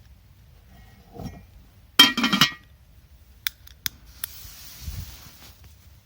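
A metal kettle clanking with a ringing tone as it is handled, then two sharp clinks and a brief hiss.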